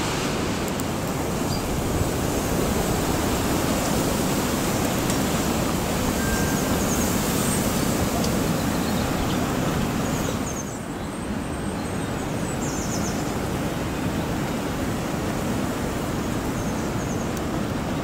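Strong wind blowing through the trees and onto the microphone: a steady rushing noise that eases briefly about ten seconds in.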